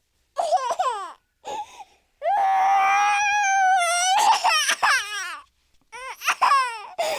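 High-pitched crying sound effect: short falling sobs in the first two seconds, then one long held wail from about two to four seconds that breaks into falling sobs, with more sobs near the end.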